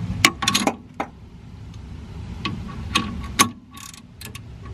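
Ratchet with a T45 Torx bit clicking while loosening a rear brake caliper pin: about ten sharp, irregularly spaced clicks, the loudest about three and a half seconds in.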